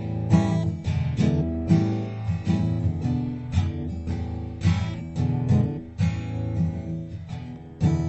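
Background music: acoustic guitar picking and strumming at a steady pace.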